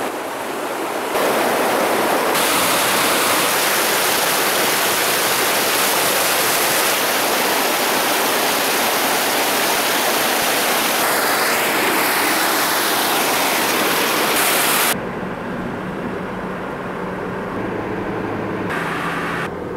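Steady rushing water of a mountain stream, a loud even hiss. About 15 seconds in it cuts to quieter steady road noise with a low hum from inside a moving car.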